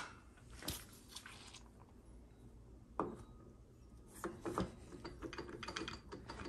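GM TH400 direct clutch drum being worked down onto the gear train and sun gear shaft: faint metal-on-metal clicks and light rattles as its splines find engagement, in a quick irregular run from about four seconds in. One sharp knock about three seconds in.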